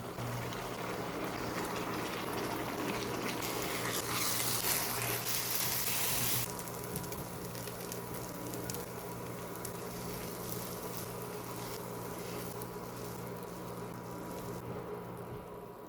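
Food cooking in a pan, sizzling and bubbling, with a louder hissing stretch about four seconds in that eases off a couple of seconds later, over a steady low hum.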